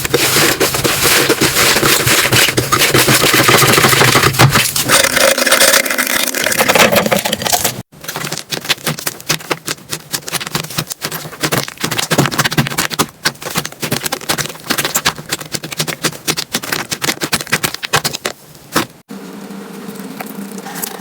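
Slime squeezed and pressed by hand, giving a dense run of crackles and small pops. The sound breaks off sharply twice as one clip gives way to the next, and is quieter over the last couple of seconds.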